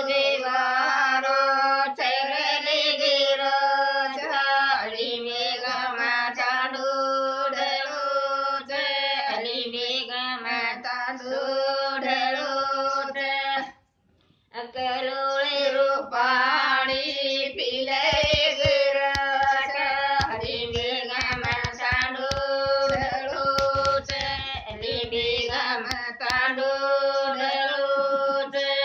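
Women singing a Banjara folk song unaccompanied, in long held notes, with a short break about halfway through. A few faint thumps run under the second half.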